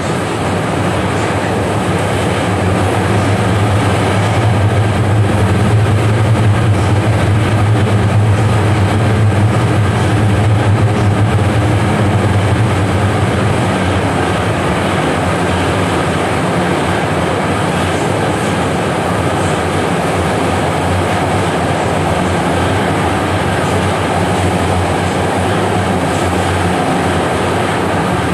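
Chengdu Metro Line 1 subway car running between stations, heard from inside the car: a steady rumble of wheels on rail and running gear through the tunnel. A low hum is strongest in the first half and eases a little about halfway through.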